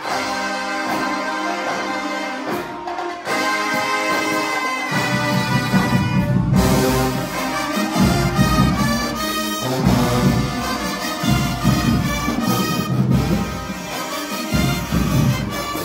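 HBCU-style marching band brass section, sousaphones, trumpets and saxophones, playing held chords loudly. About five seconds in, a heavy pulsing low-end beat joins the brass and carries on under it.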